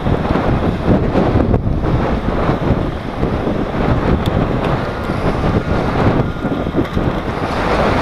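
Wind buffeting the microphone of a camera on a moving bicycle: a loud, uneven rush of noise heaviest in the low end.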